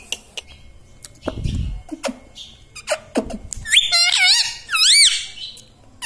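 Rose-ringed parakeet calling: two loud, wavering, whistle-like calls about four and five seconds in, with scattered sharp clicks and a low thump earlier.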